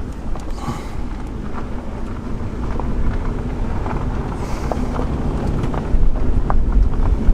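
Car driving along, its engine and road noise rumbling low and steady, with wind buffeting the microphone. The rumble grows louder about six seconds in.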